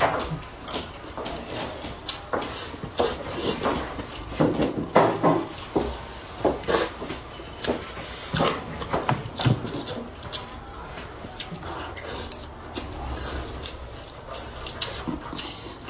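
Close-up eating sounds: chewing and smacking on a mouthful of rice and minced meat, with chopsticks clicking and scraping against a ceramic bowl in irregular sharp clicks.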